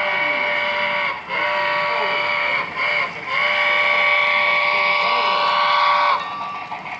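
Chime steam whistle of a model Southern Pacific steam locomotive, played by its sound decoder through the locomotive's small speaker. It blows two long blasts, a short one and a final long one, the grade-crossing signal, and stops about six seconds in.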